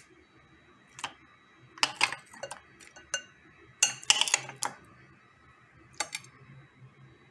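Serving utensils clinking and scraping against plates and a bowl as food is dished out: a click about a second in, clusters of clinks around two and four seconds, and one more near six seconds.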